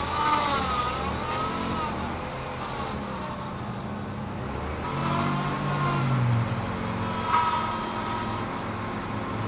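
BMW E36 M3 power steering pump whining as the wheel is turned, its pitch wavering up and down and coming back in bouts, over the low running of the S52 inline-six. The whine is the sign of low power steering fluid.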